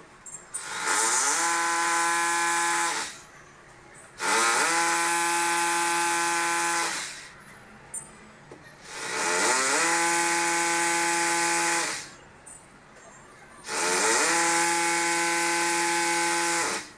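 Electric drill run in four bursts of about three seconds each. Each time the motor whines up in pitch and then holds a steady pitch under a hissy cutting noise before stopping.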